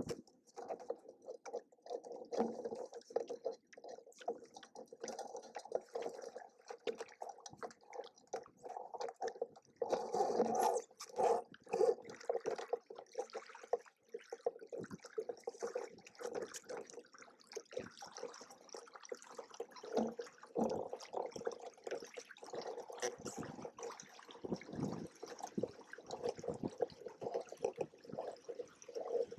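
Water splashing and gurgling against the hulls of a Hobie Cat 16 catamaran under sail, as an irregular stream of small splashes.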